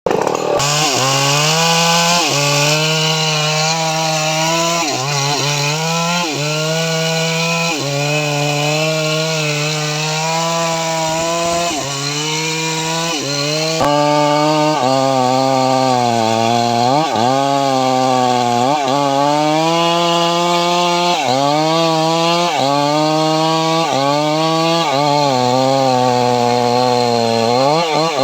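Stihl two-stroke chainsaw running at high revs while cutting cempedak wood. Its pitch dips briefly and recovers every second or two, with a longer sag about twelve seconds in.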